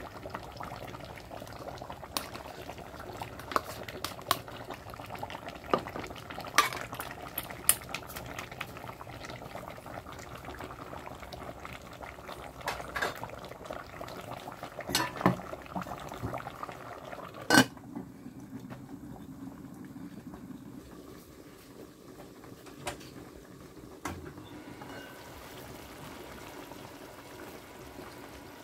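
A pot of pig head curry simmering with a steady bubbling, while a metal spoon stirring it clinks sharply against the aluminium pot now and then. The clinks stop about two-thirds of the way through, and the simmering carries on more quietly.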